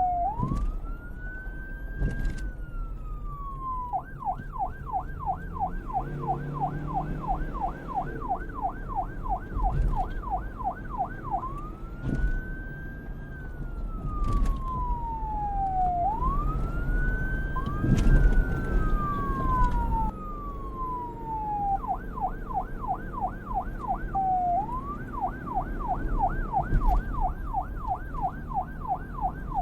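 Police car siren switching between wail and yelp: slow wails that rise and fall over a few seconds each, alternating with stretches of rapid yelp at about three cycles a second. A low rumble runs underneath, and near the middle two wails briefly overlap.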